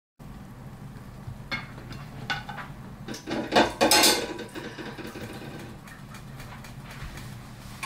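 Kitchen utensils and dishes clattering: a few separate knocks, then a louder rattling burst about three to four seconds in, over a low steady hum.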